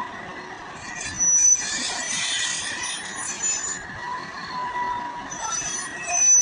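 Excavator at work, with high metallic squeals and a stretch of grinding, scraping noise about a second in, over a steady whine.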